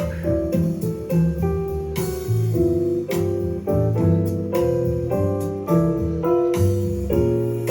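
Background music: a piano-led jazzy instrumental with a bass line and a steady beat of chord changes.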